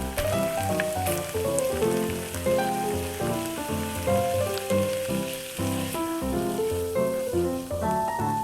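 Background music, a light melody of short notes over a steady beat, with a faint sizzle of food frying in a pan underneath.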